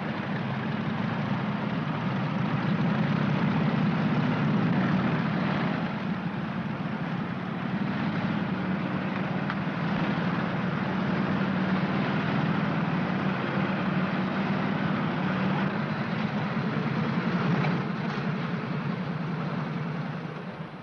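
Engines of a group of motorcycles running together as they ride in formation, a steady low drone on an old television soundtrack. The sound drops away near the end.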